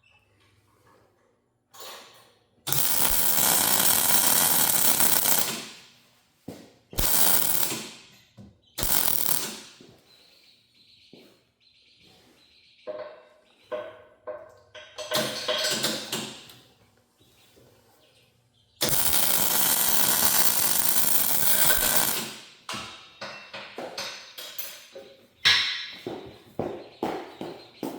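Arc welding on a steel hydraulic cylinder in a series of separate bursts, each starting suddenly and lasting one to three seconds, the longest near the start and in the second half, with the welder's crackle filling each burst; scattered clicks and knocks follow near the end.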